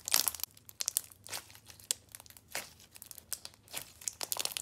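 Clear crunchy slime loaded with small plastic duck charms and white foam balls being squeezed and pressed by hand, giving a run of irregular crackling crunches.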